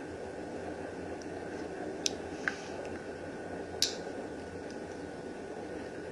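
Steady room noise with three faint sharp ticks, about two and two and a half seconds in and again near four seconds, as a snap-off blade knife cuts and trims vinyl wrap.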